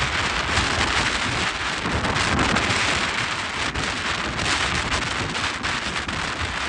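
Strong gusty wind buffeting the microphone: a steady rushing hiss over an unsteady low rumble.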